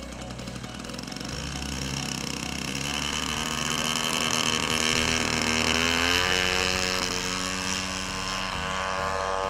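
Engine of a large RC scale P-40 Warhawk model opening up for a takeoff run. Its pitch rises over a few seconds, then holds steady and loud as the model lifts off.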